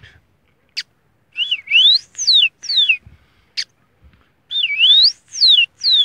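A man whistling an imitation of the tico-tico (rufous-collared sparrow) song. He gives two phrases of high sliding notes, each a dip, then a rising glide, then falling glides. A short sharp note comes before each phrase.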